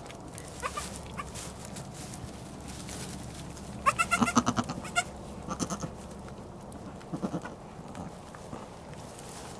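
Nigerian Dwarf goat bleating three times with a quavering voice. The first bleat, about four seconds in, is the longest and loudest; a shorter one follows, then a fainter one. Light rustling of straw runs underneath.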